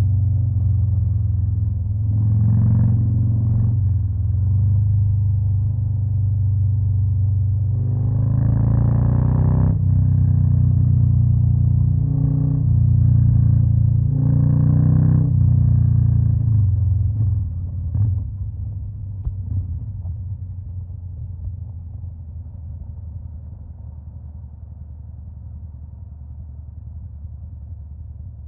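Stage 2-tuned Harley-Davidson Fat Boy V-twin engine and exhaust running with a deep rumble, swelling in pitch with several throttle openings. About two thirds of the way in it drops off to a quieter, steady rumble.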